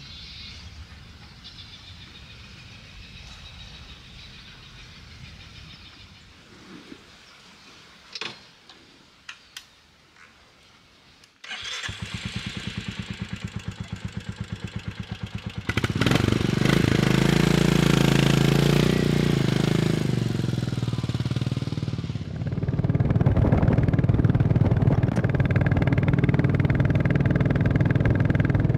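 A few light clicks over quiet ground, then about eleven seconds in a Royal Enfield Classic 350's single-cylinder engine starts and idles with an even thump. About five seconds later it revs up as the bike pulls away and runs on under load, with a brief drop in engine sound partway through, typical of a gear change.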